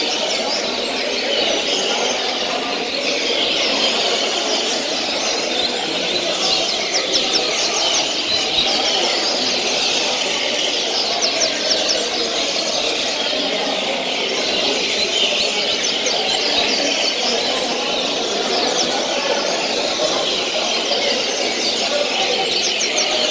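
Caged double-collared seedeaters (coleiros) singing without pause, fast twittering phrases from several birds overlapping into a dense chatter.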